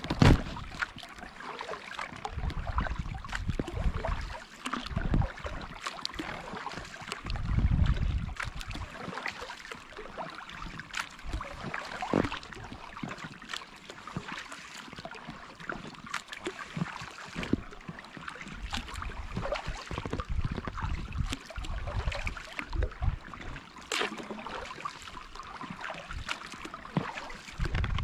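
Kayak paddling on calm water: the paddle blades dip and splash in turn, with dripping and small knocks throughout, and now and then a low rumble lasting about a second.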